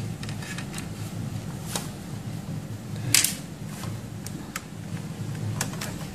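Scattered light clicks and knocks of plastic parts and cables being handled inside an opened printer, the loudest about three seconds in, over a steady low hum.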